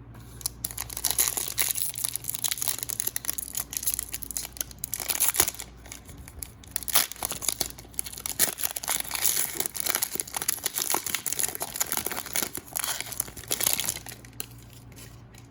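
A trading card pack's plastic wrapper crinkling and tearing as the pack is ripped open, with the wrapper handled throughout in irregular crackles that stop about a second before the end.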